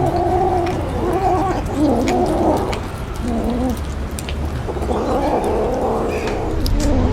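Kittens growling and grumbling over their food as they eat fish: a low, wavering, almost unbroken vocal sound, with small sharp clicks of chewing.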